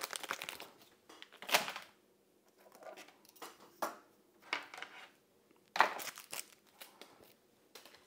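Packaging and paper rustling and crinkling as items are gathered up and handled on a desk, with several brief sharp handling noises; the loudest comes about six seconds in.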